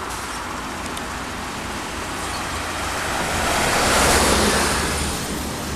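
A road vehicle passing close by: a rushing of tyre and engine noise that swells to a peak about four seconds in, then fades.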